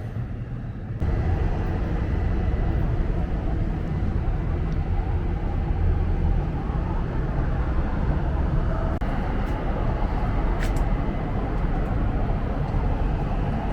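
Steady city vehicle and traffic rumble, a dense low noise that starts abruptly about a second in and holds evenly.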